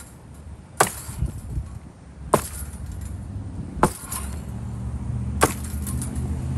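Four heavy chopping blows into a broken-up couch with a long-handled tool, each a sharp crack, about a second and a half apart. From about four seconds in, a vehicle engine runs low and steady underneath.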